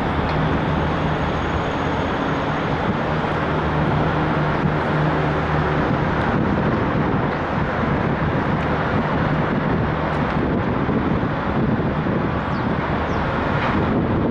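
Steady outdoor traffic noise with a low engine hum that stops about halfway through.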